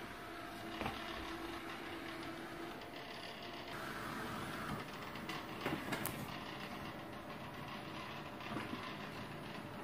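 Coredy robot vacuum running in mopping mode: a steady whir from its motors and brushes, with a few light clicks.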